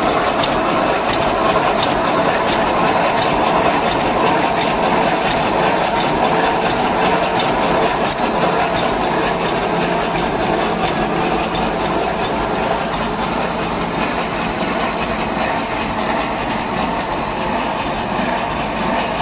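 Full-auto fine-wire mesh welding machine running, a steady mechanical clatter with repeated light clicks as it welds 8.5 mm-hole mesh.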